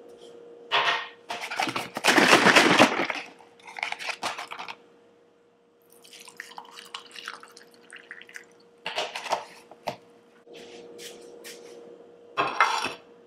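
Orange juice poured from a carton into a drinking glass, with the clatter of the carton, glass and a plate being handled and set down on a countertop. A faint steady hum runs underneath.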